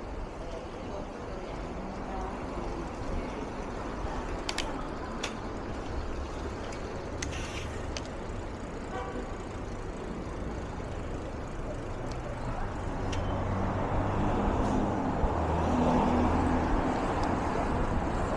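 Street traffic heard from a moving bicycle: steady road and wind noise with a few sharp clicks, and a motor vehicle's engine getting louder in the last few seconds as it comes close.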